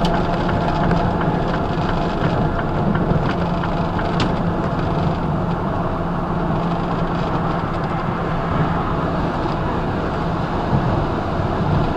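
Semi truck cruising at highway speed, heard from inside the cab: a steady low diesel engine drone with road and tyre noise.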